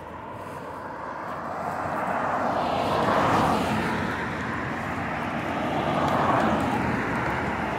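Cars passing close by on a two-lane road, a rush of tyre and engine noise. It swells to a peak about three seconds in, eases, then swells again as a second car goes by near the end.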